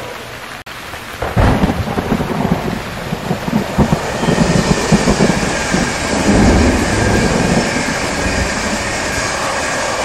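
Steady rain with a loud, uneven low rumble that starts suddenly about a second in and rolls on, rising and falling.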